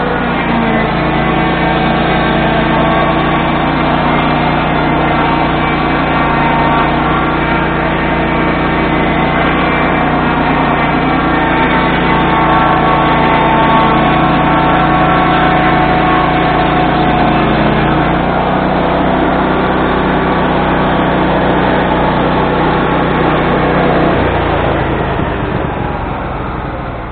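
Swing blade sawmill's gasoline engine running hard with its circular blade cutting through a log, a steady engine drone. The note shifts about two-thirds of the way through and drops lower and a little quieter in the last few seconds.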